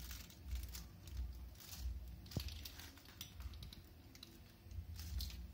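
Faint, irregular clicking and rustling as a pizza-cutter wheel is rolled through a sheet of kaju katli on butter paper, with low handling bumps.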